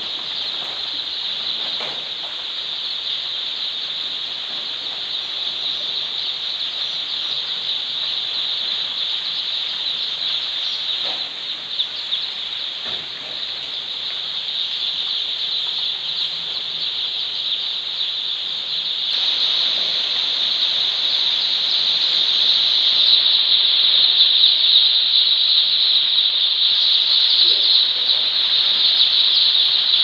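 Thousands of day-old chicks peeping all at once: a dense, continuous, high-pitched chorus that grows louder about two-thirds of the way through.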